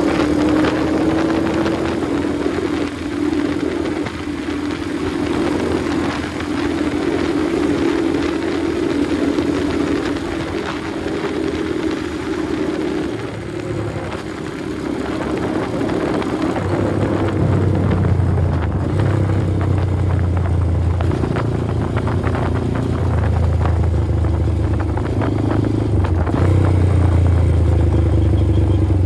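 Motorcycle engine running under way, heard from on board the bike. A little past halfway the engine note drops to a deeper, lower pitch and stays there, getting slightly louder near the end.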